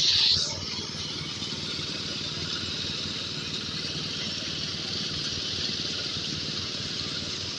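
Engine-driven corn sheller running steadily, with an even engine hum under a constant hiss. A short, louder hissing burst comes right at the start.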